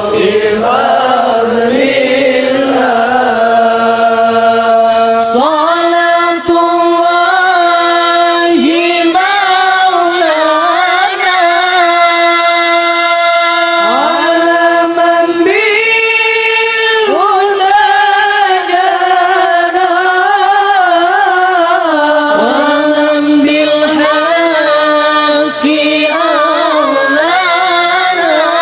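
A solo voice chanting an Arabic devotional qasidah in long, ornamented phrases, with no instruments. Notes are held for several seconds and turned with melismatic runs.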